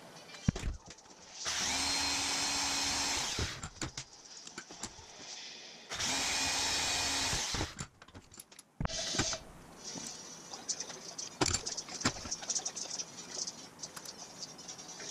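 An electric power tool runs twice, about two seconds each time, with a steady motor whine. Light metal clicks and knocks from steel hardware being handled follow.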